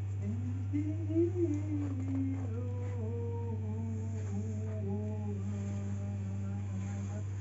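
A man's voice humming one long note into a microphone: it slides up, sinks back, and holds low with a small step down midway, stopping near the end. A steady low hum runs underneath.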